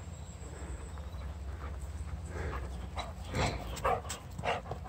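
Labrador retriever panting in quick breaths after a run, coming in about two seconds in and growing louder and closer, two or three breaths a second.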